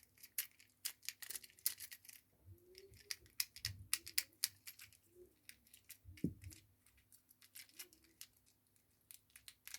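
Fidget cube being clicked, a run of faint, irregular plastic clicks, some in quick bunches.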